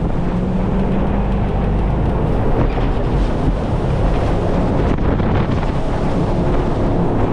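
Jet boat engine running at speed under heavy wind buffeting the microphone, a loud steady drone.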